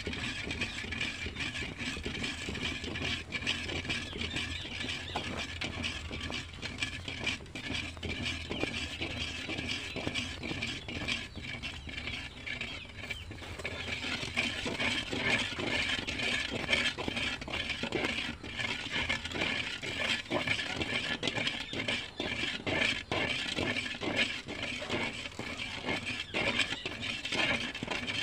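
Metal spoon stirring and scraping a thick grated-cassava mixture in an aluminium basin, a dense run of squeaky metal-on-metal scrapes that grows louder about halfway through.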